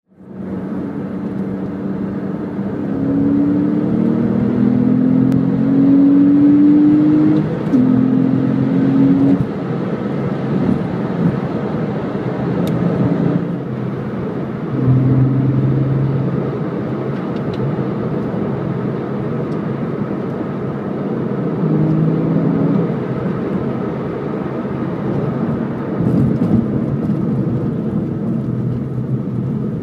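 Porsche 911 Carrera S (997 Gen II) 3.8-litre flat-six heard from inside the cabin, pulling up through the revs for a few seconds, with a gear change about seven and a half seconds in and a shorter pull after it. It then settles into steady cruising under a haze of tyre and road noise.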